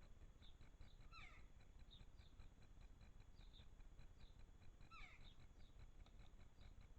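Faint garden birds calling: two downward-sliding calls about four seconds apart, with short high chirps in between, over a low rumble of background noise.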